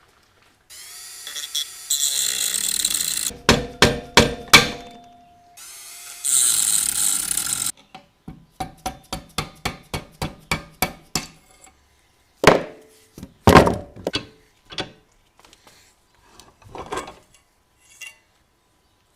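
Workshop tool work: two runs of a power tool of about two seconds each, with a cluster of sharp knocks between them. A quick run of even clicks follows, about four a second, then a few scattered louder knocks.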